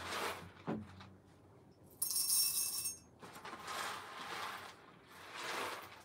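Foil-lined coffee bean bag crinkling as it is handled and opened, in a few separate rustles, the loudest and brightest about two seconds in.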